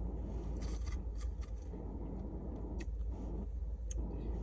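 Small handling and eating noises at close range: scattered soft rustles and sharp clicks over a steady low hum.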